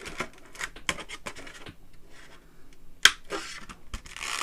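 Plastic card packaging being scratched and pried at by hand, a run of short crackles and clicks with one sharp snap about three seconds in.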